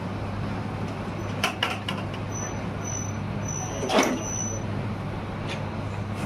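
Steady low hum of factory machinery, with a few sharp knocks and three short high tones about two to four seconds in.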